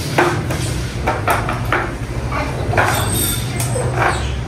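A child's plastic three-wheeled kick scooter knocking and rattling on a tile floor as it is handled and pushed: a string of short uneven clatters, over a steady low hum.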